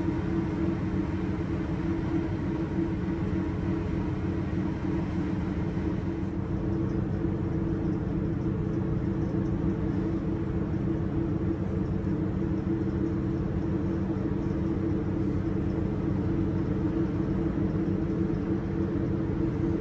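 Steady low drone of a Great Lakes freighter's engine and shipboard machinery, a constant rumble with a few steady hum tones running through it.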